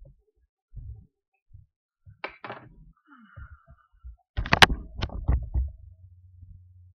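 Soft thumps of footsteps, then, about four and a half seconds in, a cluster of loud knocks and clatter as the recording device is handled close to its microphone, followed by a faint low hum.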